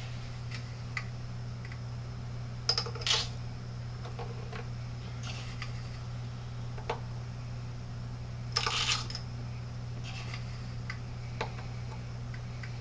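Small metal utensils clinking and clattering: a few short clattery bursts and scattered single taps over a steady low hum.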